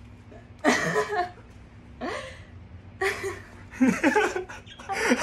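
A man and a woman laughing in several separate outbursts, the first and loudest about a second in.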